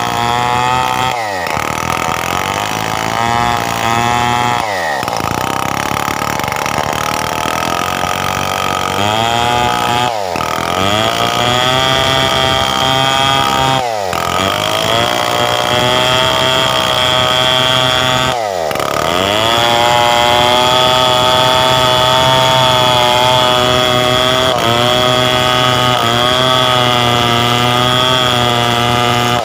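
Stihl 070 two-stroke chainsaw running at high revs while ripping through a coconut-palm log. The engine's pitch wavers under the cutting load and dips briefly about five times before picking back up.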